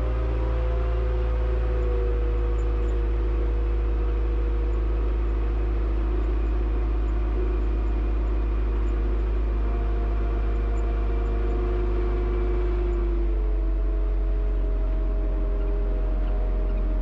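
Front-loader tractor's engine running steadily, with a low drone and several whining tones that shift in pitch about thirteen seconds in.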